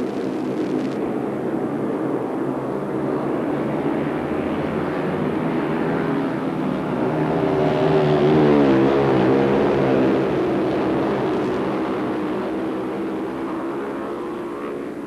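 Several 500 cc single-cylinder speedway motorcycles racing flat out around the track. Their engine note rises and falls, and it is loudest a little past halfway, where the pitch swoops up and then down as the pack goes by.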